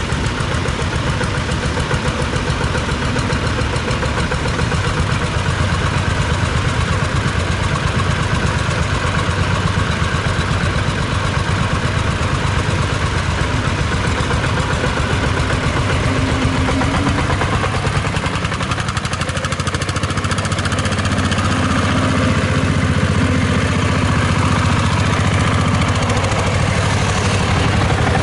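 Small vintage tractor engine running steadily under load while it pulls a single-furrow plow, with an even, fast beat of firing strokes. It gets a little louder about two-thirds of the way through.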